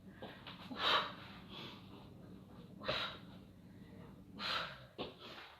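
A woman breathing hard from exertion, with several sharp, forceful breaths a second or two apart.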